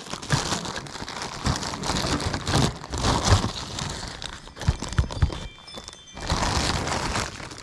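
Rustling with scattered knocks and thuds, from objects being handled.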